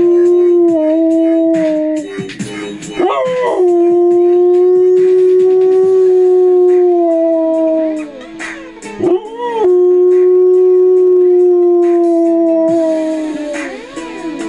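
Pit bull-type dog howling along to techno music: long howls held on one steady note, broken twice by short gaps after which the voice slides up back into the note.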